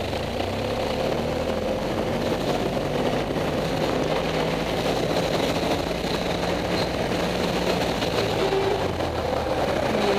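BMW F800GS parallel-twin engine running steadily at low revs while the motorcycle rolls slowly along a town street, heard through a helmet-mounted camera.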